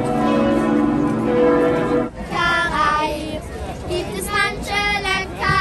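Church bells ringing, with sustained tones that cut off suddenly about two seconds in; then children's voices singing.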